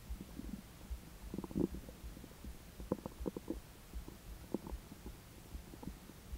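Human stomach and intestines gurgling while digesting a meal. One longer gurgle comes about a second and a half in, then a quick run of short bubbling pops around three seconds, and a few scattered small pops after that.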